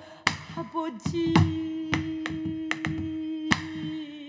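Pansori singing: a woman sings '아버지' ('Father') in a lament and holds it as one long note of about three seconds. She accompanies herself on a buk barrel drum, with about four sharp strokes of the stick across the note.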